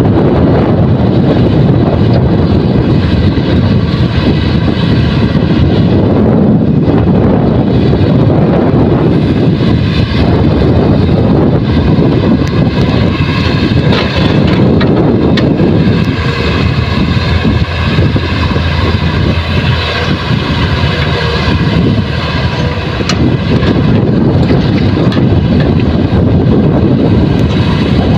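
Heavy diesel engines of an excavator and dump truck running steadily while soil is loaded, with a few brief knocks partway through.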